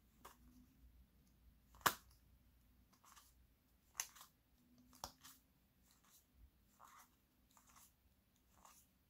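Trading cards being flipped through by hand: a string of soft card slides and snaps, about one a second, the sharpest about two seconds in.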